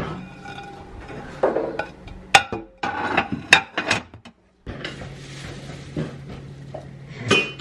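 Ceramic plates clinking and knocking against each other as they are lifted from a dishwasher rack and stacked in a cupboard, several sharp clinks in a row. After a brief break a steady low hum runs under a few softer knocks, and there is a louder clatter of dishes near the end.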